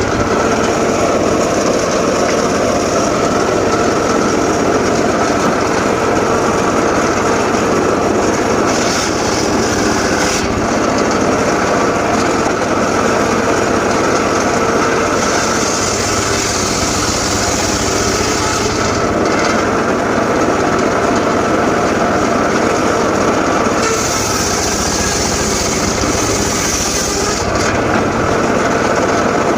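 Homemade engine-driven circular saw running steadily, with a brighter, higher sound coming in a few times for several seconds each as the blade cuts through teak.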